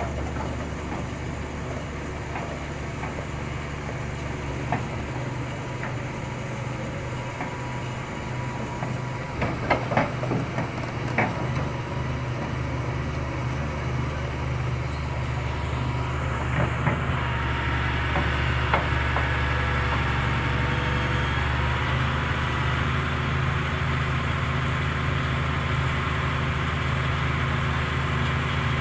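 Hitachi ZX330 excavator's diesel engine running steadily, with a few sharp knocks about ten seconds in and a few more later. The engine gets louder partway through and stays there.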